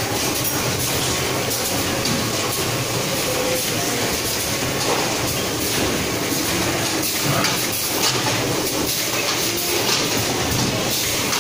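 Tea-box packaging line running: film overwrapping machines and their conveyors making a steady mechanical clatter of many rapid clicks.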